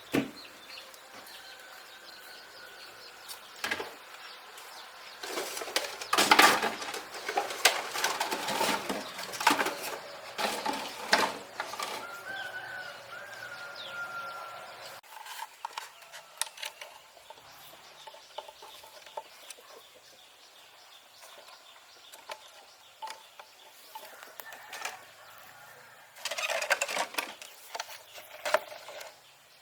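Two spells of rustling and rapid clattering knocks, one long and one short, with a faint bird call in the first.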